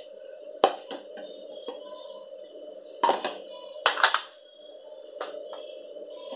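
A metal fork tapping and scraping scrambled egg out of a plastic tub, with sharp clicks just under a second in, then two louder clatters about three and four seconds in as the tub and fork are set down on the plate. Steady background music plays underneath.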